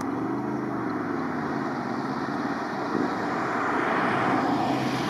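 Two E721 series electric commuter trains running past each other: a steady rumble of wheels on rail with a low humming tone, the noise swelling about four seconds in as the cars pass closest.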